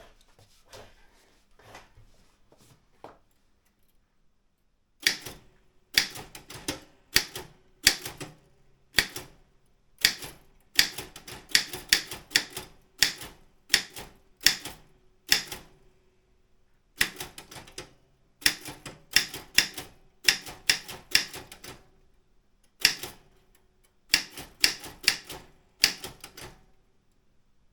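Daro Optima M16 manual typewriter with a wide A3 carriage being typed on. A few faint key clicks come first, then loud keystrokes in quick runs with short pauses, stopping shortly before the end.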